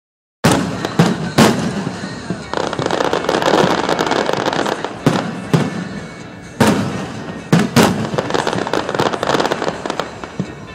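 Fireworks display: aerial shells bursting in sharp bangs, three in quick succession as the sound cuts in about half a second in and another cluster around the middle, with continuous crackling between them.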